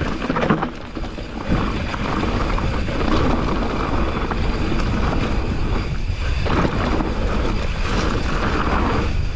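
Mountain bike rolling fast down a loose dirt and stone trail: wind rushing over the microphone over the crunch of tyres on gravel and the chatter of the bike.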